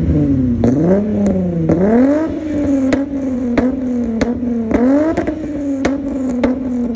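Volkswagen Jetta 3's VR6 engine idling and blipped in several short revs, with sharp cracks from the exhaust coming about every half-second.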